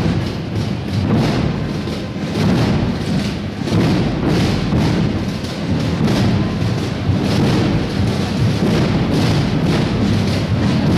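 Drums of a processional marching band playing a steady march beat, a dense run of drum strokes.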